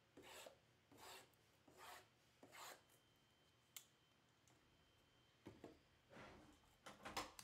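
Faint, soft rubbing and scraping of cardboard trading-card boxes being handled and slid on a tabletop, in several short strokes, with one light click about halfway through.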